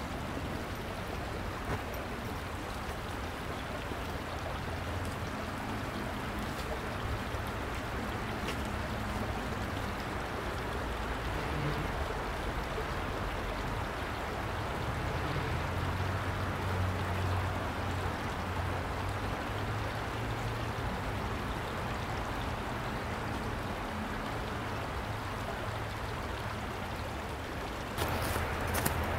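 Shallow creek water running steadily over rocks, a continuous rush, a little louder near the end.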